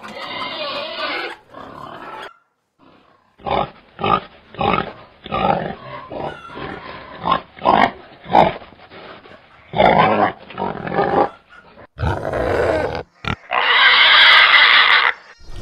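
Domestic pig grunting: a run of short grunts, then two longer, louder grunts near the end.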